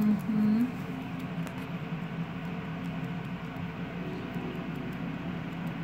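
Rotary permanent-makeup tattoo pen humming steadily as its needle works pigment into the skin. A brief, louder rising tone sounds in the first half second.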